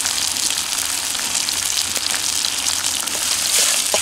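Thin-sliced beef frying in hot fat on an iron pan: a steady sizzle with many small pops and crackles.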